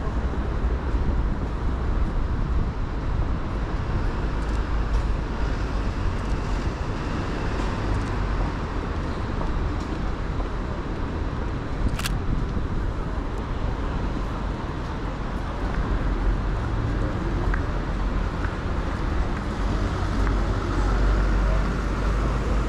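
City street traffic: a steady wash of passing cars with a strong low rumble. There is a single sharp click about halfway through.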